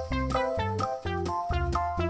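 Upbeat background music: a plucked or keyboard melody over a bouncing bass line, with notes changing several times a second.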